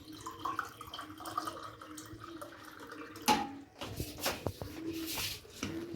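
Water being added to flour batter in a bowl and mixed, with a sharp knock about three seconds in and a few light clicks after it.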